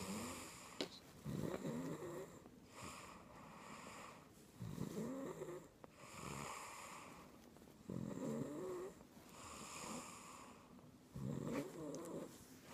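Snoring in a slow, even rhythm: a snore with a wavering pitch about every three seconds, four in all, with softer breaths between.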